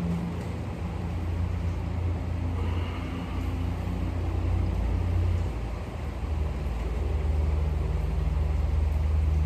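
A steady low mechanical hum, like a motor or engine running, that dips briefly about halfway through and then carries on.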